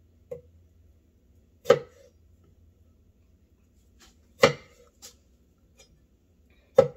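A kitchen knife cuts through plum onto a wooden cutting board, making three sharp knocks a couple of seconds apart and a few lighter taps.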